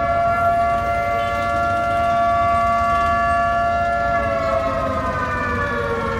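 A siren sounding one loud, held tone with several pitches together, which starts to wind down in pitch about four seconds in.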